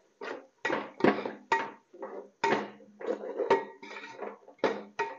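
Metal slotted spoon scraping and knocking against the inside of a large aluminium pot while stirring a thick masala, in about a dozen quick strokes, roughly two a second, each with a short ring of the pot.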